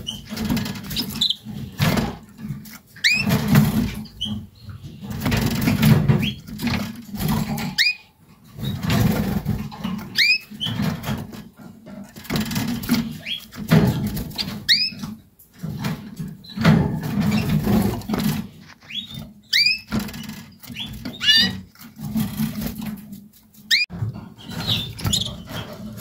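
Portuguese Harlequin canaries giving short, rising chirping calls every second or two, mixed with fluttering wings and rustling close to the microphone.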